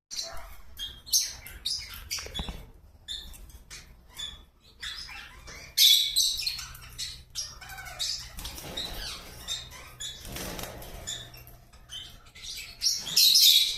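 Small pet parrots, budgerigars and lovebirds, chirping in quick short bursts with wings flapping. The chirps are loudest about six seconds in and again near the end.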